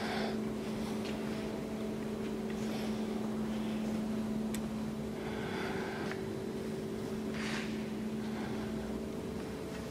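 Steady low machine hum held at two fixed pitches, with a few short scuffing or rustling noises scattered through it.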